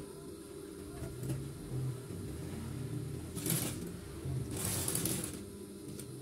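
Typical industrial sewing machine with its motor humming steadily, and two short bursts of stitching about halfway through as the waistband is fed under the needle.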